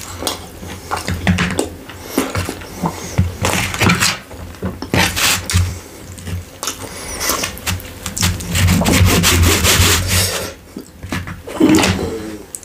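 Close-miked chewing and mouth sounds of eating kebab pizza: irregular crunching and smacking, with a short lull about ten seconds in.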